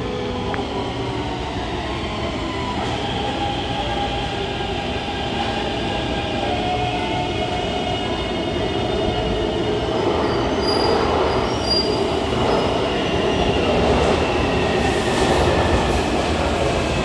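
Taipei Metro C321 electric train pulling into the station as it brakes. Its Siemens GTO-VVVF traction inverter whines in several tones that fall slowly in pitch as the train slows, over a dense rumble of wheels on track. A few short high squeaks come about eleven seconds in.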